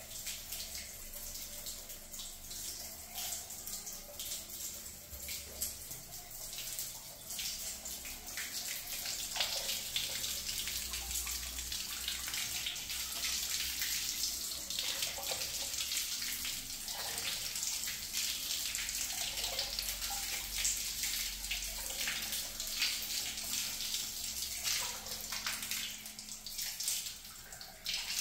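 Water gushing steadily from an open wall pipe outlet and splashing onto a tiled floor, a continuous rush. The old galvanised iron supply line is being flushed after acid cleaning of its rust blockage.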